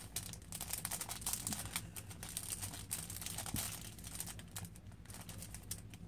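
Crinkling and crackling of a makeup brush's packaging being unwrapped by hand, with irregular small clicks throughout.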